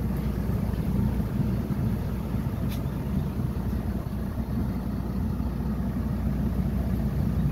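Boat engine running steadily at low cruising speed while the boat is underway: a low, even drone with a wash of water noise from the hull and wake.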